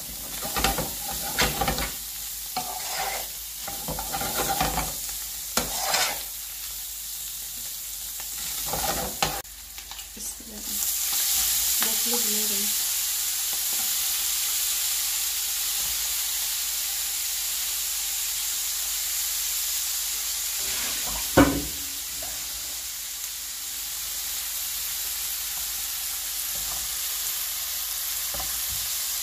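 A metal spoon scraping and stirring a tuna and onion mixture in a frying pan over a light sizzle. About ten seconds in, a loud steady sizzle starts as wet blanched broccoli hits the hot oil. About eleven seconds later comes a single sharp knock of the spoon on the pan.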